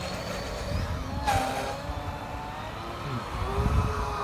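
Aquaholic electric RC speedboat's motor whining as it runs fast across the lake, the pitch rising and falling with the throttle through the turns, over a low wind rumble.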